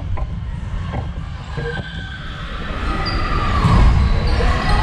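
Volleyball being bounced on a wooden gym floor, a few sharp knocks echoing in a large hall, over a steady low rumble.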